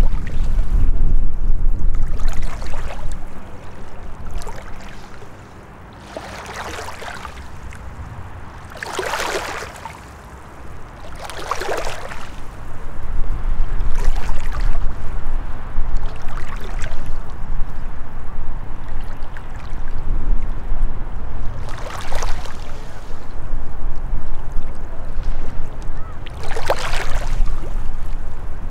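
Small waves lapping and splashing against rocks in shallow lake water at the shoreline, a splash every few seconds, over a loud low rumble of wind buffeting the microphone.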